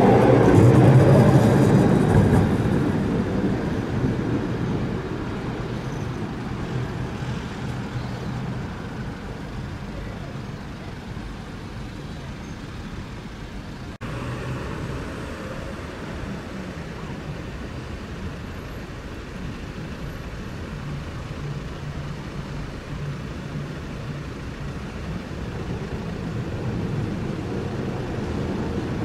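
Alstom Citadis 403 NG tram passing close by: its running noise is loudest in the first couple of seconds, then fades away. After a cut, street traffic runs steadily, and another tram's running noise grows louder near the end as it approaches.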